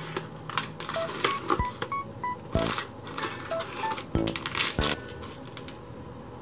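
Paper cookie box and cellophane-wrapped cookies being handled: crisp rustling and crinkling with sharp clicks and taps, mixed with a scatter of short beeping tones at different pitches.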